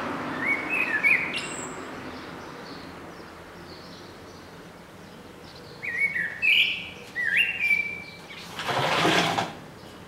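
Male common blackbird singing two short phrases of whistled notes, about a second in and again around six seconds in, the first ending in a high squeak. A brief rushing noise, about a second long, comes near the end.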